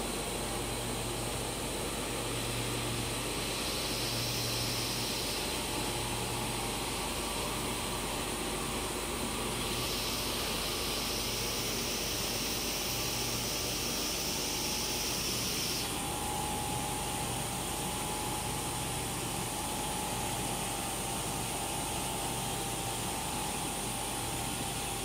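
Polypropylene hollow corrugated sheet co-extrusion line running: a steady mechanical hiss and hum. A higher hiss comes and goes twice, and a faint steady whine joins in the second half.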